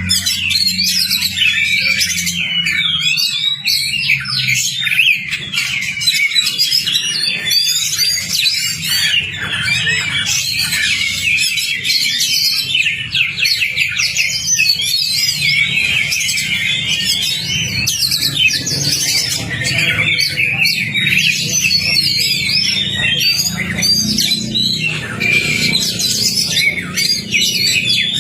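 Oriental magpie-robin (kacer) in full, rapid song: a dense, unbroken stream of varied whistles, trills and chattering notes. A steady low hum runs underneath.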